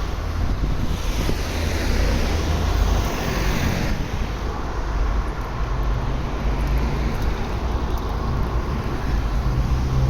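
Road traffic with wind rumbling on the microphone; a louder vehicle passes in the first four seconds, its sound dropping away abruptly at about four seconds in.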